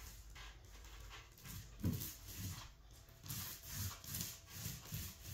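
Small paint roller on a pole being worked over wet drywall plaster on a ceiling to raise a popcorn texture: repeated rubbing, squelching strokes that come quicker and more regularly from about two seconds in.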